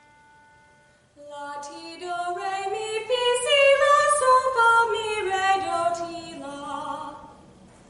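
A young woman singing unaccompanied, in held notes that step up about an octave and back down. A steady pitched note fades out in the first second, before she starts singing about a second in.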